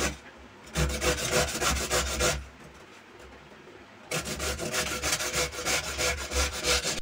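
Raw papaya being grated on a stainless steel box grater, a quick run of rasping strokes. They stop for under two seconds, then start again, steady.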